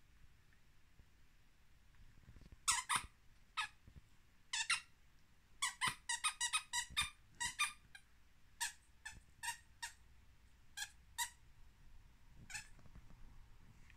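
Squeaky plush dog toy squeaking as a small dog chews it: short, high squeaks in irregular bursts, with a quick run of about ten squeaks around the middle and scattered single squeaks after.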